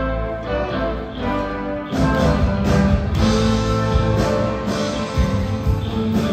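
Rock band and symphony orchestra playing an instrumental passage live, with no singing; the music swells fuller about two seconds in.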